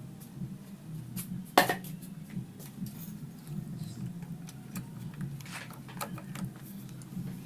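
Metal tools and engine parts clinking and clattering during disassembly of a Honda Grand motorcycle cylinder head: scattered sharp clicks, one louder clank about a second and a half in, over a steady low hum.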